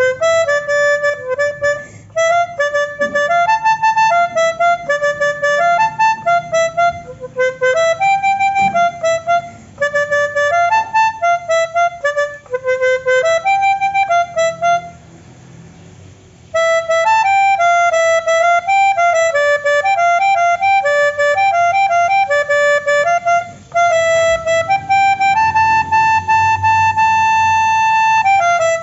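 Pianika (melodica) playing a quick single-line Basuri telolet melody, a tune imitating an Indonesian bus's musical horn. The playing stops for a moment about halfway, then picks up again and ends on a long held high note.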